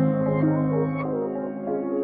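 Background music: slow ambient chords with sustained notes, ending shortly after.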